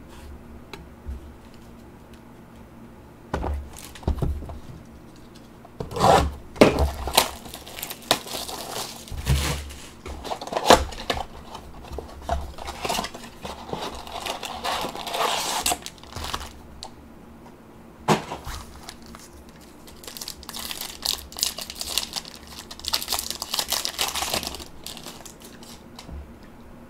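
Cardboard blaster box of trading cards and its wrapping being torn open by hand, with crinkling of packaging, in irregular bursts. There is a brief lull partway through, then more tearing.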